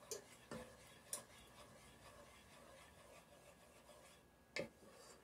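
A wooden spoon scraping four times, short and sharp, against the bottom of a cooking pot while butter is stirred as it melts.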